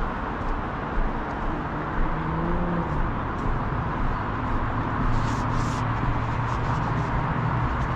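City street traffic: vehicle engines running and passing, with a steady hum and two short hisses about five seconds in.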